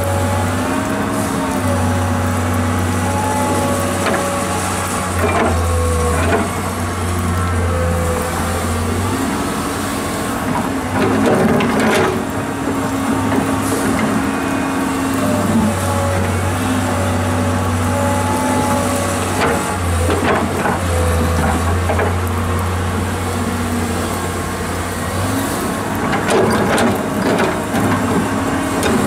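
Komatsu PC210 crawler excavator's diesel engine running under hydraulic load, its pitch shifting up and down as the boom and bucket move. A few sharp knocks and scrapes come as the bucket works the earth pile.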